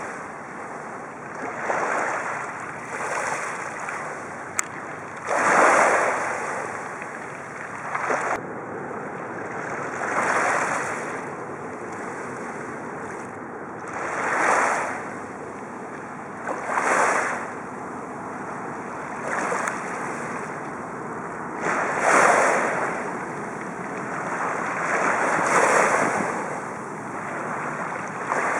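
Small sea waves washing against the shore, a swell of surf every two to four seconds over a steady wash of water.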